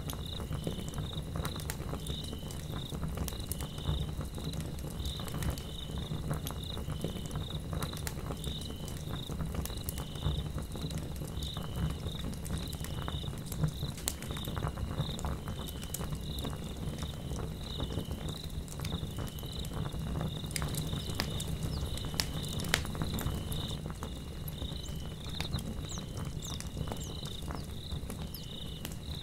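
Log fire burning, with sharp crackles and pops over a low rumble, while insects chirp steadily in an even, regular pulse.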